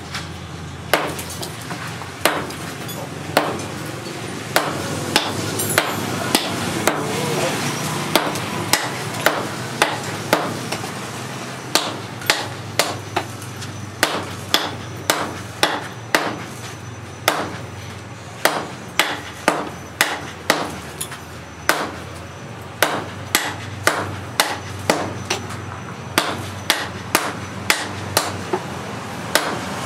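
Hand hammer and sledgehammer striking a red-hot steel axe head on a post anvil: sharp blows about two a second, in runs with short pauses, over a steady low hum.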